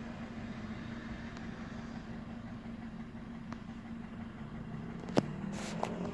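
VW 1.4 TSI (CAVD) petrol engine idling steadily, an engine that the owner reports makes a loud knocking and clicking noise at idle and low revs. A sharp click about five seconds in, then a smaller one.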